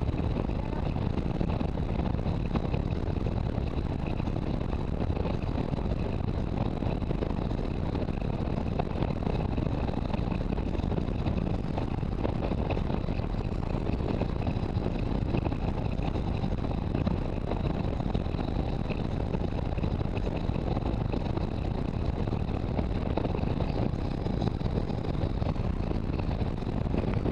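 Touring motorcycle cruising at a steady highway speed: a constant rush of wind over the microphone with the engine running underneath, holding an even level throughout.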